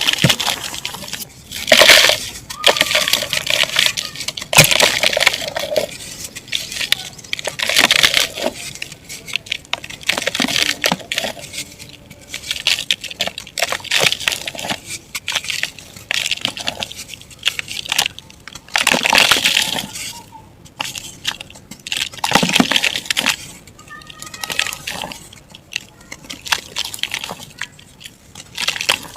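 Chunks of dried mud and dirt being crushed and crumbled by hand, a dry, crackly crunching that comes in repeated squeezes every second or two.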